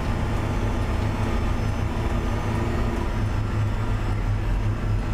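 Backhoe loader's diesel engine running steadily under way on the road, heard from inside the cab as a constant low hum.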